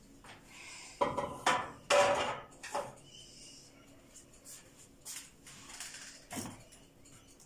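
Metal kitchen utensils clanking: four sharp knocks with a brief ring within about two seconds, then a single knock near the end as the mixer bowl is taken hold of on its base.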